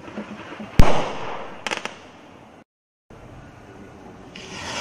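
Consumer firework rocket bursting with one sharp, loud bang about a second in, which echoes briefly and is followed by a few quick crackling pops. After a cut, a short hiss rises near the end.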